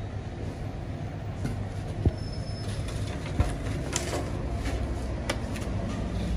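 Handling of a foam takeaway box and plastic bag, with a few sharp clicks and knocks and a brief rustle about four seconds in, over a steady low rumble.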